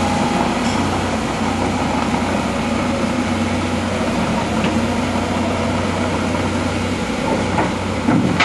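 Heavy diesel engines of a Volvo crawler excavator and an articulated dump truck running steadily with a constant low hum.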